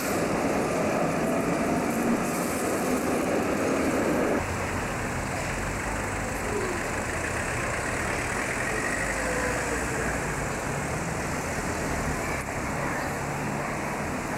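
An old four-axle tram and its trailer car roll past on street track for about four seconds. The sound then cuts off abruptly to a steady low rumble of street noise.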